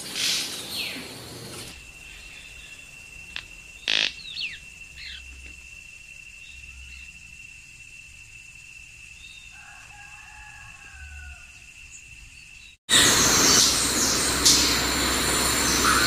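White-collared manakin wing-snapping: a sharp snap, like a quick roll of clicks, about four seconds in, followed by short falling calls, over a steady high tone. About three seconds before the end the background turns suddenly loud and hissy, with more sharp snaps.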